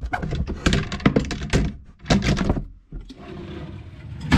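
Rapid knocks and thuds of a desk drawer unit being shoved into place under a desk, then a softer stretch and a sharp knock near the end.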